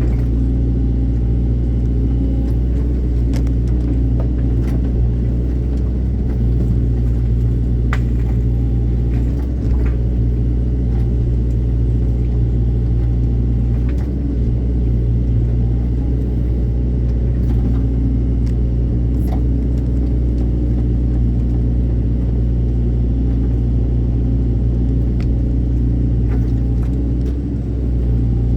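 Excavator's diesel engine running steadily with a deep, low rumble, with a few faint clicks and knocks over it.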